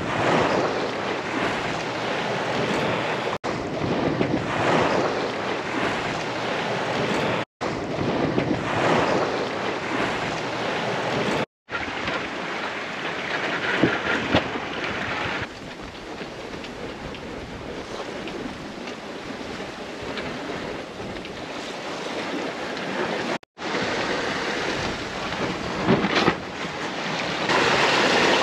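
Wind and breaking waves rushing past a small sailboat under way in open ocean, with wind buffeting the microphone. The rush is broken a few times by brief silent gaps where shots are cut together.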